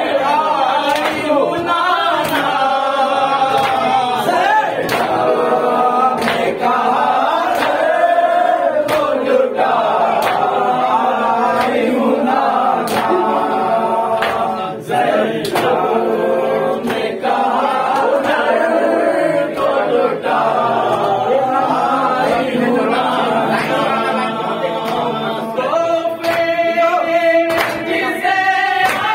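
A group of men chanting a noha together in unison, with a regular beat of hand slaps from matam (rhythmic chest-beating) keeping time under the voices.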